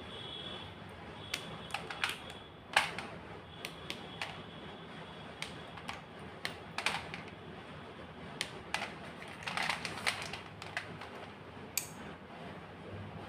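White gym chalk being crunched and crushed: irregular sharp crackles and snaps, with the loudest snap a little under three seconds in.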